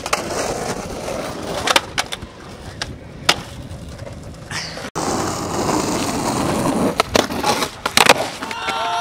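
Skateboard wheels rolling over rough asphalt, with sharp clacks of the board popping and landing: a few in the first few seconds, then more around seven and eight seconds in after a sudden cut.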